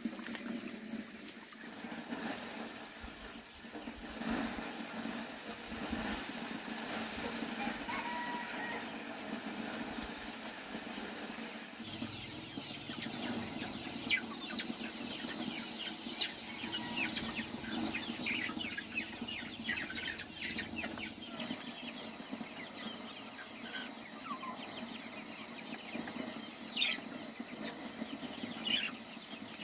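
A flock of young chickens peeping, with many short, high, falling chirps through the middle stretch and a few more near the end, over a steady high-pitched whine.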